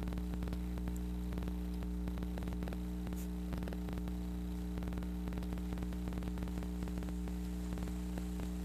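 Steady low electrical hum made of several constant tones, over a faint hiss with light scattered crackle.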